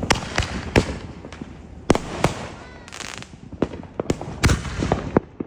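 Fireworks going off: an irregular string of sharp bangs and pops, with louder booms among them about two seconds in and again near the end.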